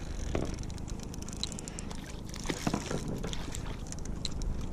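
A hooked fish splashing at the surface as it is reeled to a kayak and swung out of the water, with scattered short clicks over a steady low rumble.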